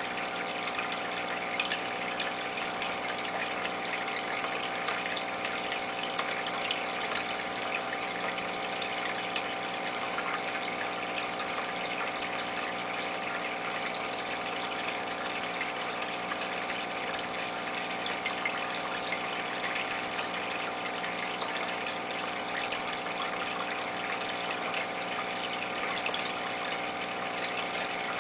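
Aquarium water filter running steadily: a constant motor hum under a continuous trickle of water.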